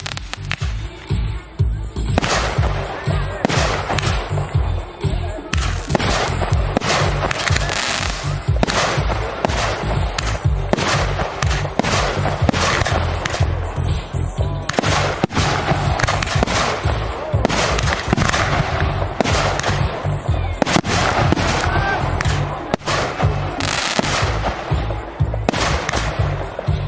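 Fireworks going off in quick succession, with bangs and crackling from bursting shells, over music with a steady bass line.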